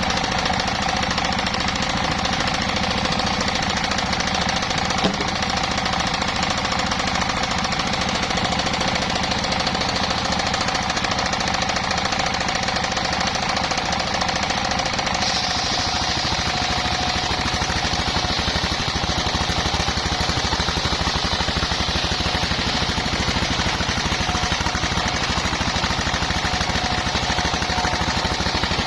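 Mobile circular sawmill running: its engine throbs with a fast, even knock under a steady high whine. About fifteen seconds in, a brighter hiss joins.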